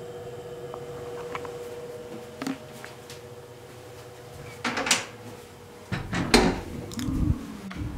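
Wooden interior door being handled: a light click, then louder knocks and clatter about five seconds in and a cluster of thuds a second later. A steady hum dies away in the first two seconds.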